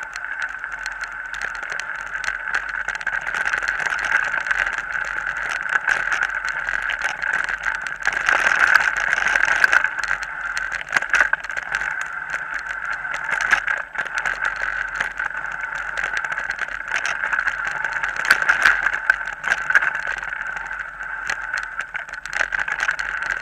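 Mountain bike riding along a bumpy dirt forest track: a steady rushing noise with frequent knocks and rattles as the bike goes over the bumps.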